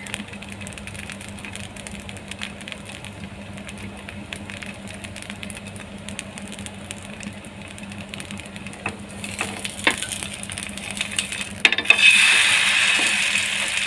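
Semolina pancake batter frying quietly on an oiled non-stick tawa, with faint crackles and a couple of clicks. About twelve seconds in, a metal spatula flips the pancake and a loud sizzle starts as its oiled top side lands on the hot pan.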